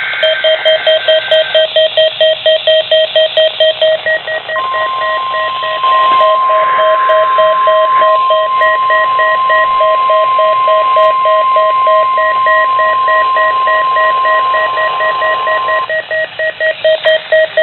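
NOAA Weather Radio warning alarm: a steady 1050 Hz tone, held for about eleven seconds starting about four and a half seconds in, over a weather radio receiver's alert beeping about four times a second. The tone signals a weekly test of the alert system.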